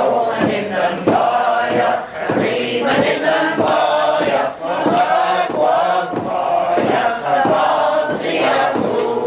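A group of men singing a Gaelic milling song together, with the wet wool cloth beaten down on the wooden table in a steady thump about twice a second to keep time.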